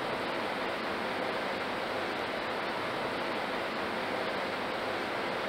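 Steady machinery noise of an automated engine assembly line: an even rushing hum with no distinct knocks or clicks.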